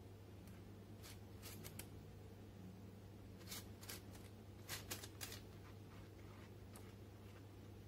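A silicone pastry brush dabbing and scraping cream glaze over baked buns on a parchment-lined tray: a few short, soft scratches in small clusters, over a low steady hum.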